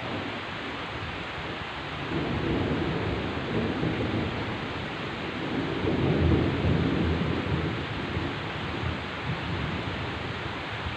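Heavy rain falling steadily, with a long rolling peal of thunder. The thunder starts about two seconds in, is loudest around the middle and fades away near the end.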